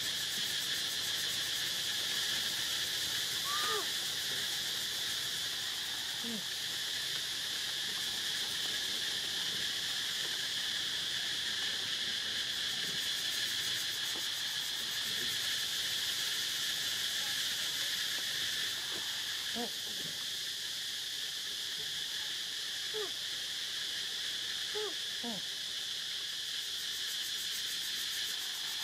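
A steady, high-pitched insect chorus drones throughout. A few faint short calls that slide up and down in pitch come and go, about four and six seconds in and again around twenty to twenty-five seconds in.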